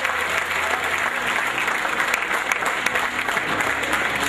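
Many people applauding, clapping steadily.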